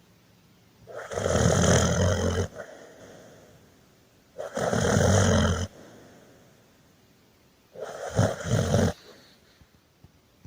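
Snoring: three loud snores about three and a half seconds apart, each lasting over a second, the last one broken and choppy.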